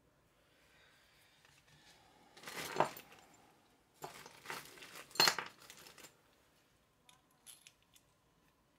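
Small metal engine parts clicking and clinking as they are handled and fitted by hand, in two short bouts of rattling handling noise, with a few light ticks near the end.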